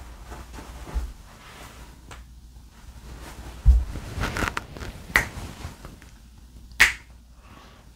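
Quiet room tone with a few separate clicks and soft thumps from a person shifting and gesturing, a dull thump a little before halfway and a sharp click near the end.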